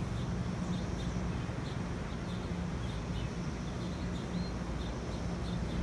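Birds chirping in short, repeated high notes over a steady low hum of road traffic.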